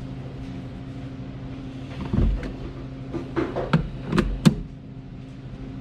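Several knocks and clunks of parts being handled in a car: one about two seconds in, then three or four sharper knocks in quick succession a little later, over a steady low hum.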